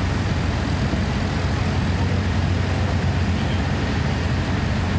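Fire apparatus diesel engines running steadily while they drive the pumps and aerial ladder feeding water onto the fire. The result is a constant low drone that does not change in level.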